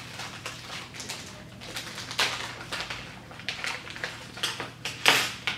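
Hands handling unboxed items on a table: irregular light clicks, taps and rustles, with a sharper knock about five seconds in as something is set down.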